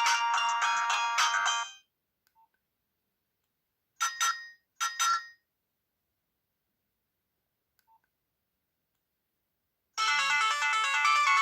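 Nokia 6030 mobile phone ringtones: a ringtone melody that cuts off suddenly about two seconds in, two short electronic tones a little under a second apart about four seconds in, then another ringtone melody starting near the end.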